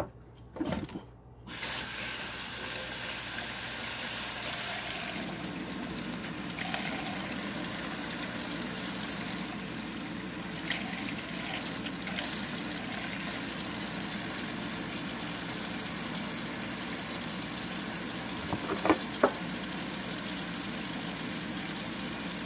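Kitchen tap running steadily into a sink, switched on about a second and a half in, with a few short knocks near the end.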